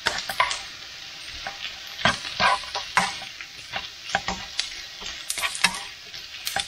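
Spatula stirring and scraping diced potatoes, bacon and onions around a frying pan, in irregular strokes several times a second, over a steady sizzle of frying.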